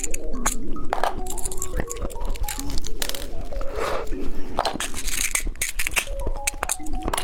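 Close-miked crunching and crackling of a bicycle-shaped candy being bitten and chewed, in many short, sharp bites, over light background music.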